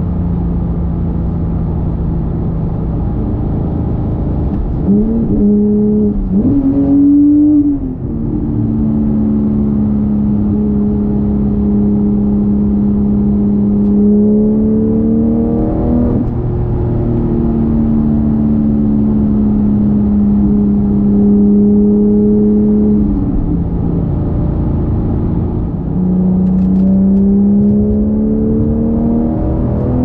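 Porsche 991.2 911 GT3 Touring's naturally aspirated 4.0-litre flat-six under way, holding mostly steady cruising revs. Several times the revs climb and then step with a gear change, and they rise again near the end.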